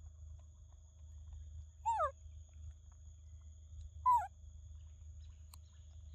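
Two short cooing calls from a young macaque, about two seconds apart, each sliding down in pitch, over a faint steady high hum.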